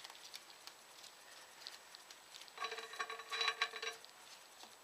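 Pet parrot giving a harsh, rapidly pulsing chatter for about a second and a half, starting just past the middle, after a stretch of faint light clicks and taps.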